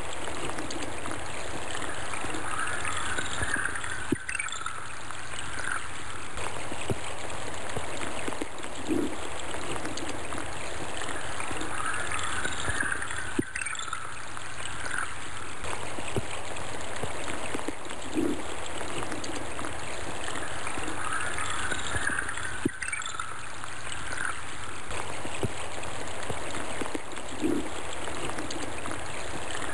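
Steady running water of a stream, trickling and gurgling, in a short recording that repeats about every nine seconds with a brief dip at each join.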